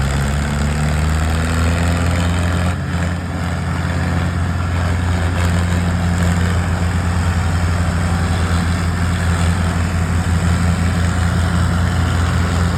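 Engine running steadily, a low pulsing drone that dips briefly about three seconds in.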